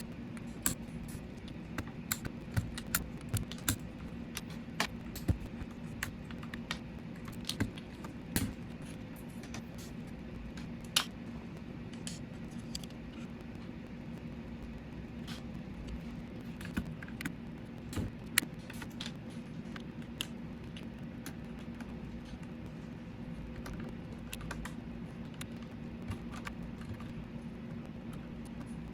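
Plastic PBT keycaps clicking and clacking as they are pulled off and pressed onto a mechanical keyboard's switches. The sharp clicks come irregularly, thicker in the first two-thirds and sparse near the end, over a steady low hum.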